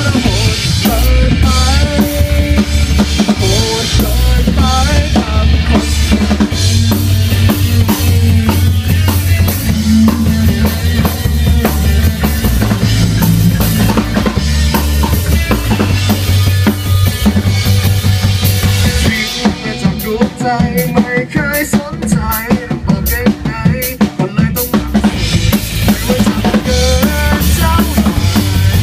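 Live rock band playing an instrumental passage with no vocals: drum kit, bass guitar and an electric guitar playing a lead line with wavering, bent notes. About two-thirds of the way through the bass drops out for several seconds, leaving guitar and drums, then the full band comes back in near the end.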